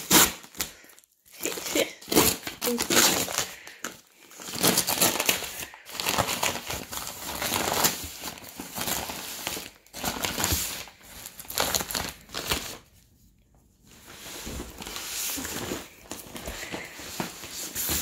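Brown paper mailing bag being torn open and crumpled by hand: irregular bursts of paper rustling and tearing, with a brief pause about two-thirds of the way through.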